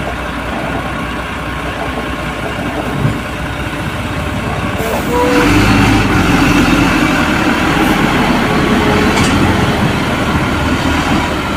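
Heavy truck's diesel engine running low and steady, then louder under load from about five seconds in as it hauls the crane-laden lowbed trailer round the bend. A short hiss comes just before the engine picks up.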